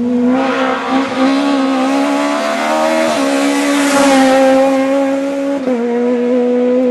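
Rally car engine at high revs as the car drives past flat out. The engine note stays steady, steps up slightly about three seconds in and dips near the end. Tyre and rushing noise swell to a peak as the car goes by, about four seconds in.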